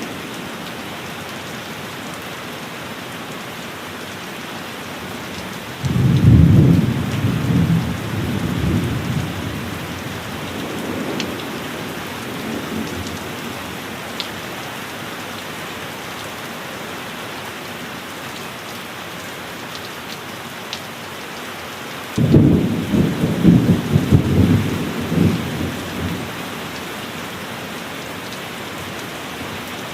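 Steady heavy rain with two peals of thunder: one a few seconds in, another about two-thirds through, each starting suddenly and rumbling off over several seconds.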